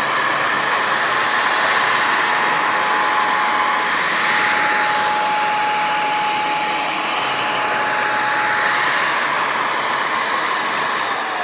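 JPHYLL corded mattress vacuum running steadily: an even motor-and-airflow rush with a thin, steady whine, the whine dipping slightly in pitch just before the sound cuts off near the end.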